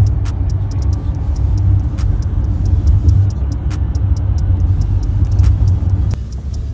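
Loud, steady low rumble of a moving passenger van heard from inside its cabin: road and engine noise, easing a little near the end.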